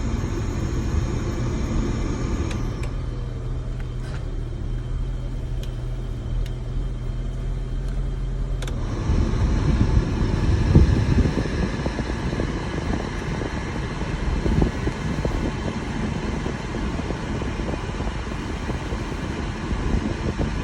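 Cabin sound of a 1990 BMW 535i's straight-six idling with the climate-control blower running, heard from inside the car. A few sharp clicks come from the controls, and about nine seconds in the air flow grows louder and fuller as the system switches over to air conditioning.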